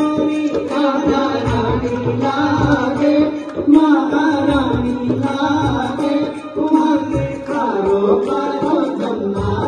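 A live devotional bhajan: a man singing through a microphone, with musical accompaniment and a steady beat.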